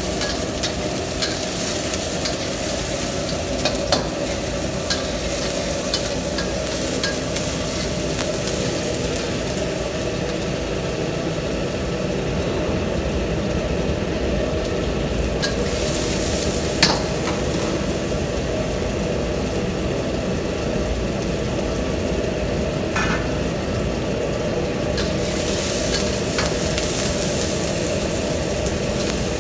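Sliced onions sizzling in hot oil in a steel wok, with a metal spatula scraping and clicking against the pan now and then as they are stirred, over a steady low rumble.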